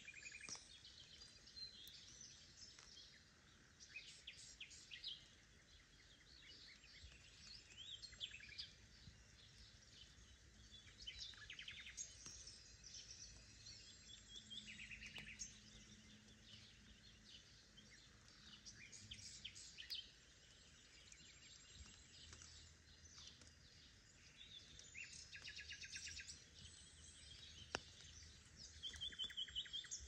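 Several songbirds calling and singing faintly throughout, with short chirps and a few rapid trills, over a steady hiss of light spring rain.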